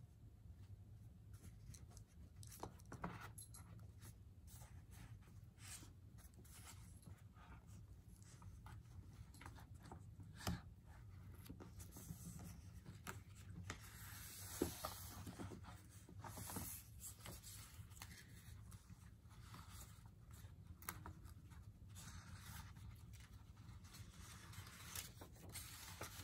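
Near silence: room tone with a steady low hum and faint scattered rustles and clicks, the sharpest about ten and fifteen seconds in.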